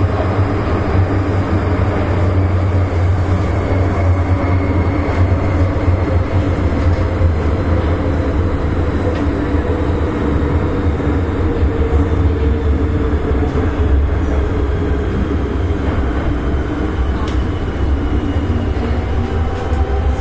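MTR M-Train subway car running between stations, heard from inside the passenger car: a steady, loud, deep rumble of wheels and running gear, with humming tones that drift slowly in pitch.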